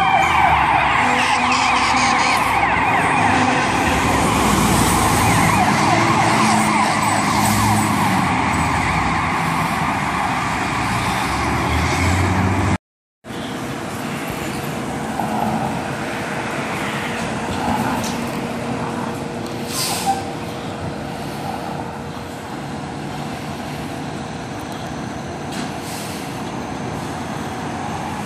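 Fire truck siren as the apparatus drives off, its pitch sliding down as it goes, over the sound of the truck. About halfway through the sound cuts off abruptly, and a quieter stretch of street noise follows with a steady hum and a couple of sharp short sounds.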